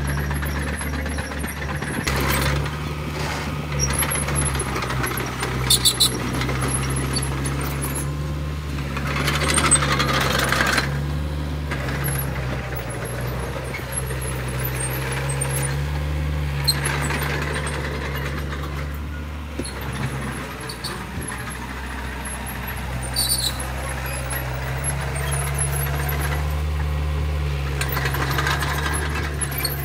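Mini crawler bulldozer's engine running steadily while it pushes dirt, with scattered metallic clinks and squeaks from its steel tracks and blade.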